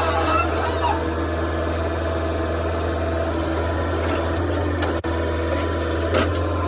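Diesel engine of a JCB backhoe loader running at a steady low speed, a constant low hum with no revving.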